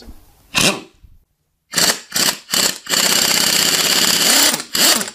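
Handheld power tool, run in several short bursts that wind up and spin down, with one longer run of nearly two seconds in the middle, while undoing a bolt on the generator engine.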